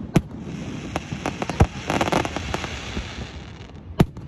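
Aerial fireworks shells bursting overhead: sharp bangs near the start, a loud one about a second and a half in and another near the end, with a quick run of smaller pops in between.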